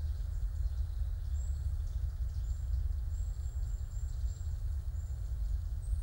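Forest ambience: a steady low rumble, with faint, very high, thin bird chirps repeating through it about once a second.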